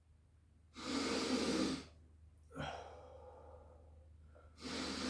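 A person taking two deep, noisy breaths, about a second in and again near the end, as he ends a one-minute breath hold.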